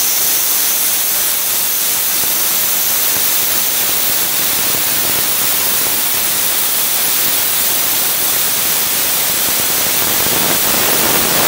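Air plasma cutter (CUT 50 type) cutting steel plate: a steady, loud hiss from the compressed-air plasma arc, growing a little louder near the end.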